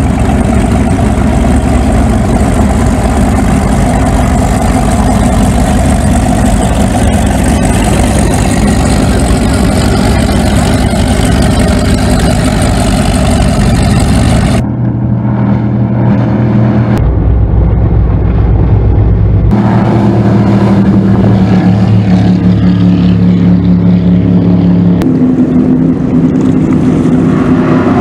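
Offshore powerboat V8 engines running loud and revving. About halfway the sound changes abruptly to a deeper, steadier engine note, with a few more sudden changes after it.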